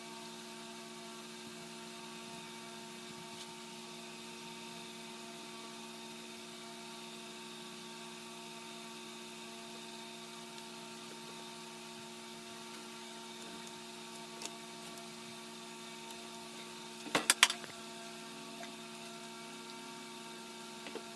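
A steady hum, with a quick cluster of three or four sharp knocks near the end.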